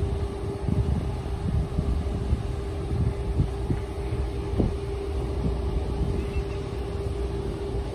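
Diesel freight locomotive approaching from a distance, its engine a low rumble with a steady hum, mixed with wind buffeting the microphone.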